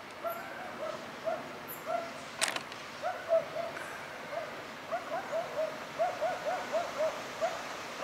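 A series of short hooting calls, about two to three a second, coming faster after the middle. There is one sharp click about two and a half seconds in.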